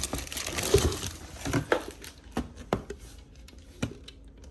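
Rustling and crinkling of packaging with light taps and knocks as items are handled, the rustling fading after about a second and a half into scattered clicks.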